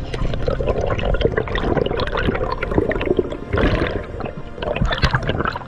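Sea water sloshing and gurgling, with many small clicks of splashes and bubbles.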